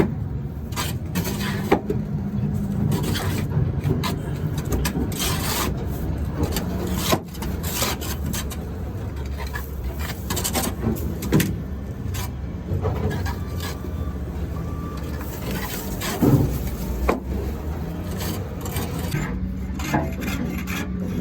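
Scraping and knocking at cement-hard caked mud inside a sugar beet piler, irregular short scrapes and knocks over a steady machinery rumble.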